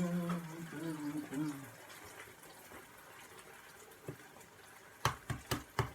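Egg shells tapped sharply against a hard edge, about five quick knocks near the end, to crack the eggs into a pan of tomatoes cooking for menemen. Before that the tomatoes simmer faintly in the pan.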